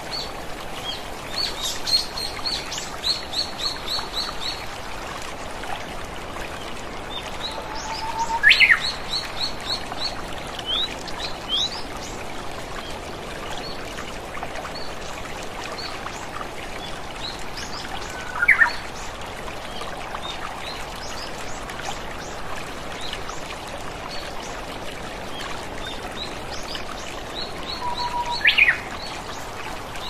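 Steady rushing water of a waterfall, with songbirds calling over it. About every ten seconds a sharp sliding call stands out, several times with a quick run of high chirps.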